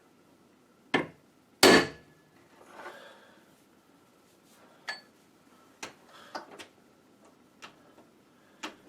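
Two blows of a 2-pound sledgehammer on a piece of brass held against a door hinge, bending the hinge so the door stops dragging on its frame; the second blow, under a second after the first, is the louder and rings briefly. A few lighter knocks and clicks follow.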